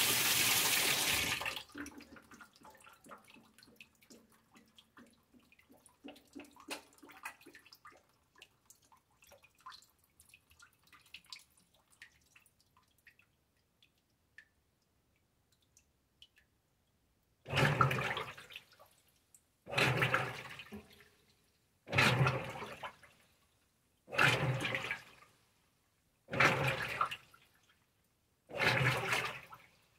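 Maytag Centennial top-load washer: the water fill stops about a second and a half in and the trickling dies away as the sensing stage ends. Past the halfway point the delicate wash agitation starts, six even sloshing strokes about two seconds apart as the basket's wash action swishes the load through the water.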